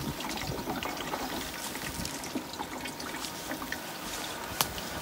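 Water running steadily into a container as it is filled. A single sharp knock near the end.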